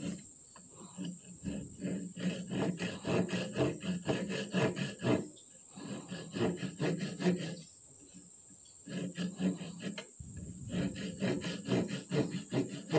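Small narrow-bladed hand saw cutting into a wooden board in quick back-and-forth strokes. The strokes come in several runs, broken by short pauses a little past the middle and again about ten seconds in.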